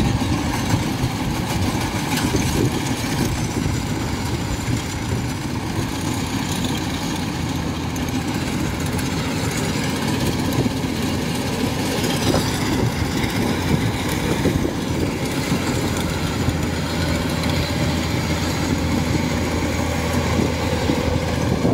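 Crawler rice combine harvesters running under load while cutting and threshing rice: a steady diesel engine sound mixed with the churn of the cutter bar and threshing machinery.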